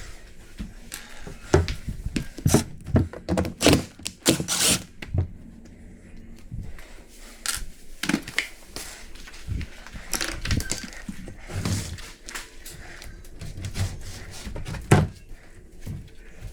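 Irregular knocks, taps and clatter from hand work on a leaking water pipe: tools and pipe parts being handled and struck, in a small room. One louder knock comes near the end.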